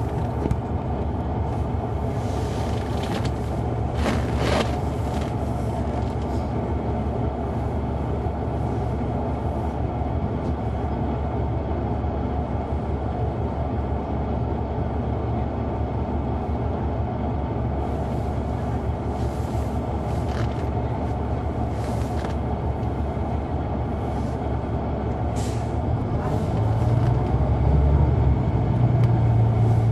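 Caterpillar C9 ACERT diesel engine of a Neoplan AN459 articulated bus, heard from inside the bus, running steadily with a few brief hisses. Near the end the engine grows louder and deeper.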